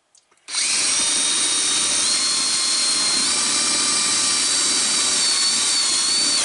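Cordless drill running steadily as its bit bores up through a plywood cabinet bottom, starting about half a second in. The motor's whine steps up slightly in pitch a couple of times as it drills.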